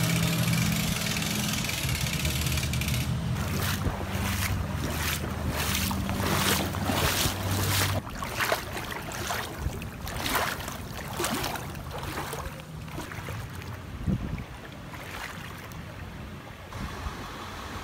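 Farm tractor engine running steadily as it tows a trailer through floodwater. It cuts off about eight seconds in. Overlapping it and running on after it are regular splashing steps of a person wading through floodwater in waders, about two steps a second, which die away after about twelve seconds.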